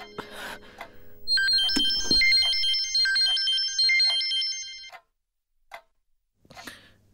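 A mobile phone ringtone plays a tune of high electronic notes. It fades out, starts again about a second and a half in, and stops suddenly about five seconds in, leaving only a few faint knocks.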